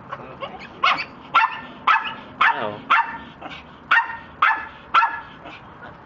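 A dog barking: about eight sharp barks at roughly two a second, with a short pause midway.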